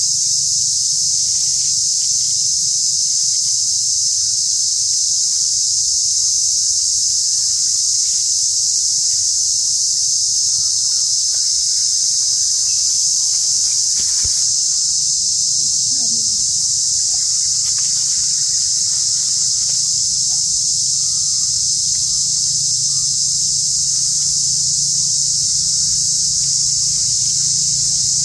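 Insect chorus droning loudly and steadily at a high pitch, with a weaker low hum beneath and no breaks.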